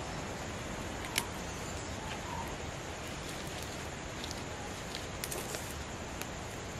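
Small open wood fire under a cooking pot, a steady hiss with a few sharp snaps about a second in and a small cluster of them around five seconds, along with light handling of leaves and sticks.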